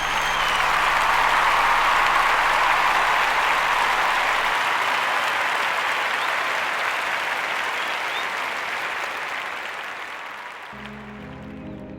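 Applause that swells up, holds and slowly fades away over about ten seconds, with background music underneath; a different music cue takes over near the end.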